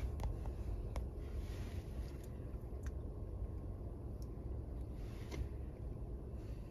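Low, steady rumble inside a small car's cabin, with a few light clicks as buttons on the dashboard head unit are pressed.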